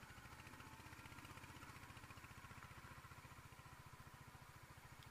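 Royal Enfield Hunter 350's single-cylinder engine running faintly with an even, quick pulse.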